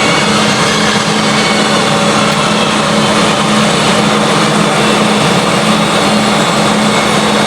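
Jet aircraft engines running: a loud, steady rush of noise with a steady low hum underneath.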